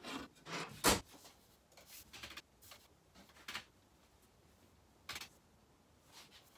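Scattered knocks, rustles and light clicks of a person moving about and handling things at a workbench, with one sharp knock about a second in.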